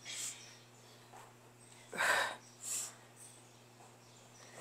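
Sharp, forceful exhalations from women doing ab crunches, breathing out on the effort of each rep: a short one at the start, then two hard ones about two seconds in, a fraction of a second apart.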